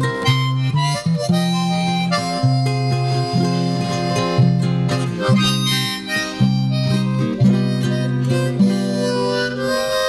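Harmonica played live, a tune of held chords that change about once a second with short breaks between phrases.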